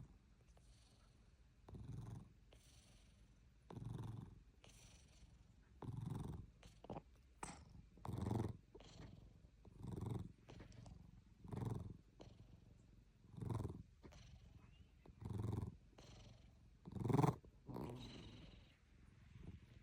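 A sleeping pet snoring: about nine slow, low, rasping snores, one every two seconds or so, the loudest near the end.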